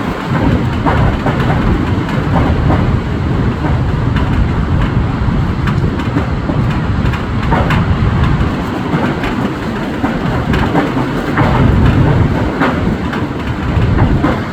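Strong storm wind buffeting the microphone in uneven gusts, over the noise of heavy waves surging against a breakwater.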